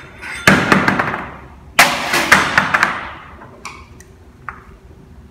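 Foil-faced exhaust heat shield sheet crinkling and rustling loudly as it is handled around a muffler, in two bursts about a second each, followed by a couple of faint clicks.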